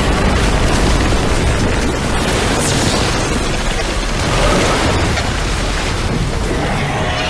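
Loud action-film sound effects: a steady, heavy low rumble with booming hits.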